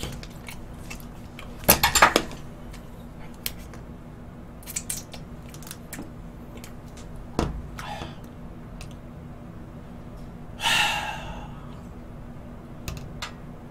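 Metal spoon clinking and scraping against a plastic dessert cup, with the cup's wrapper crinkling, in scattered short bursts; the loudest come about two seconds in and again near eleven seconds.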